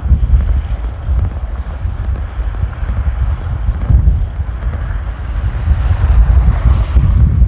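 Strong headwind buffeting the microphone on a moving bicycle: a loud, uneven low rumble with a windy hiss above it.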